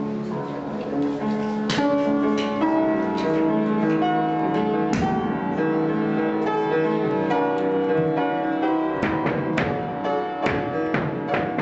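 Instrumental music with held, overlapping notes. Sharp knocks cut through it now and then, several in quick succession near the end.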